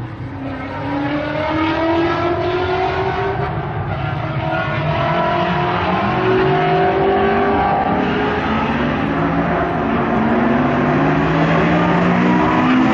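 Two street cars, a Chevrolet Camaro and a silver hatchback, accelerating at full throttle side by side from a rolling start down the drag strip. Their engines climb in pitch through the gears and grow steadily louder as the cars approach.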